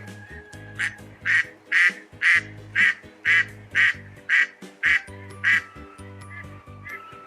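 Duck quacking in a fast, even series of about ten loud quacks, roughly two a second, tailing off into a few fainter quacks near the end, over background music.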